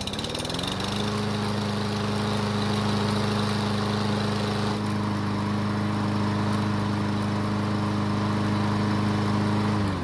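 Troy-Bilt walk-behind mower's small engine restarting: it catches and runs up to speed within the first second, runs steadily, then is shut off near the end and winds down. This is a warm restart, and the engine starts again with no issues.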